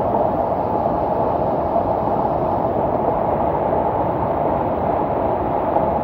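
Rain-swollen mountain waterfall and stream: a loud, steady rush of falling and churning water.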